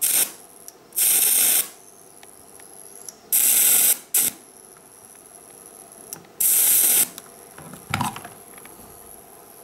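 Small electric arc from a home-built single-transistor welding inverter, struck by touching the output cable's lug to the work: three sizzling bursts of about half a second each, about a second in, past three seconds and past six seconds, with short crackles at the start and near the end.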